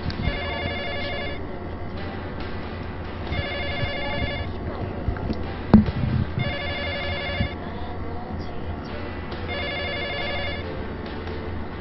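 A telephone ringing with a warbling electronic trill, about a second on and two seconds off, four rings, over a low steady hum. A single sharp knock about six seconds in.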